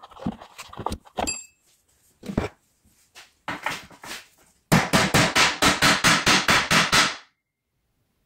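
Steel hammer beating a small steel part against a metal surface: a fast run of about a dozen loud blows, roughly five a second, in the second half. A few scattered knocks and a short metallic ping come before it.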